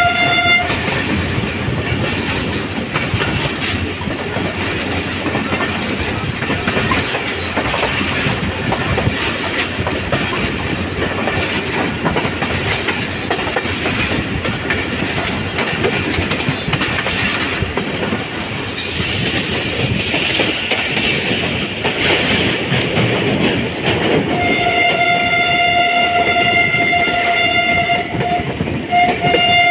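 Passenger train running, heard from a coach doorway: steady wheel-on-rail rumble with clickety-clack over the rail joints. A locomotive horn blast ends just after the start, and the horn sounds again for about four seconds near the end, with a short break.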